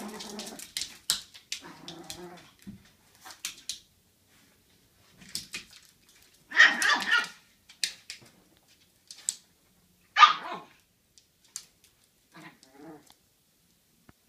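Chihuahua puppy barking in short, high bursts, a few at a time, separated by pauses. The loudest bursts come about six and a half and ten seconds in.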